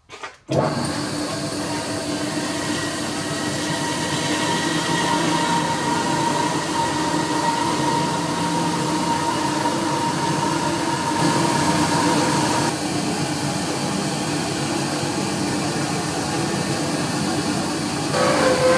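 A workshop power machine starts about half a second in and runs steadily with a whining hum, changing tone about two-thirds of the way through and again near the end, as it squares up a block of stock.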